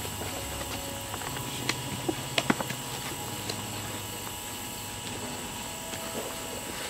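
Low steady engine-like drone with a few sharp clicks and snaps, mostly about two seconds in.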